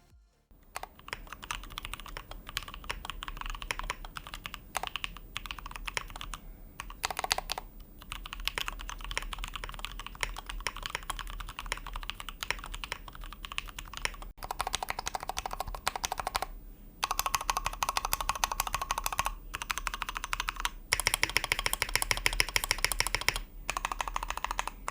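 Typing sound test on a Blade60 custom mechanical keyboard fitted with KNC Keys Red Jacket linear switches, a carbon fiber plate and PBT keycaps. Keystrokes start about a second in and run in fast, continuous streams broken by a few brief pauses, and are densest in the second half.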